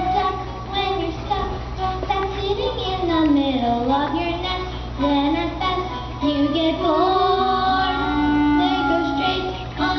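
Young voices, children's and women's, singing a melodic musical-theatre song over a steady low hum.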